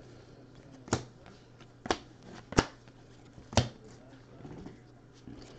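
Baseball trading cards handled on a tabletop. There is light rustling and four sharp taps, roughly a second apart, as the cards are knocked down and stacked against the table.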